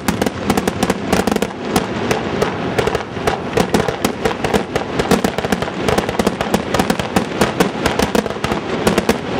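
Aerial fireworks display in a rapid barrage: shell bursts and crackling going off many times a second, near-continuously.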